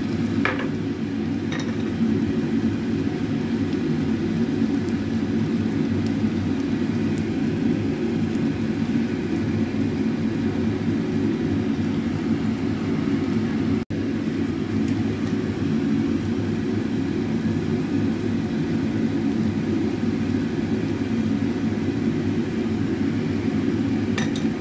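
Steady low whirring hum of a kitchen fan, with a couple of faint clicks in the first two seconds and a very brief dropout about halfway.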